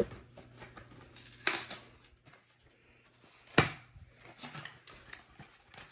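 Smoke alarm's cardboard box being handled and opened: scattered light scrapes and ticks, with two sharper knocks about a second and a half and three and a half seconds in.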